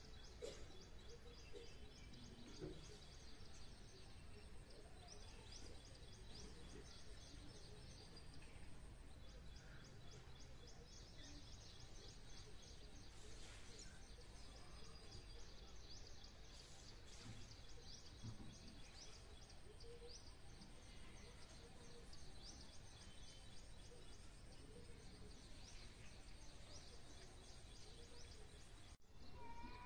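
Faint outdoor ambience with small birds chirping high and quick in short repeated runs, over a thin steady high tone.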